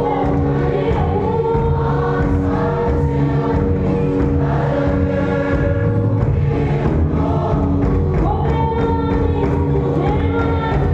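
A church congregation singing a hymn together, many voices in chorus over held sustained notes.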